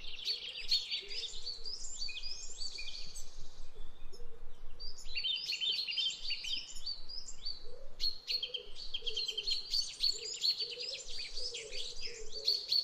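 Several small birds singing at once: dense, overlapping chirps and rapid trills, easing briefly about four seconds in, with a fainter lower warbling call underneath.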